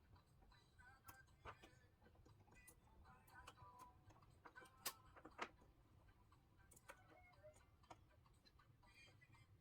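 Faint, scattered small clicks and taps of tools and small parts being handled while a replacement charging board is fitted into an open smartphone, with two louder clicks about five seconds in.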